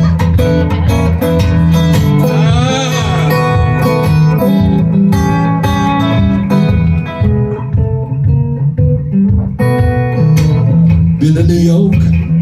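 Acoustic guitar played in a driving blues rhythm, with a harmonica in a neck rack played over it; a wavering, bent harmonica note stands out about two to three seconds in.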